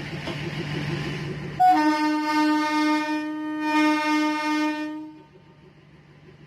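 A horn sounds one long, steady, loud blast for about three and a half seconds, starting a little under two seconds in, after a low engine rumble.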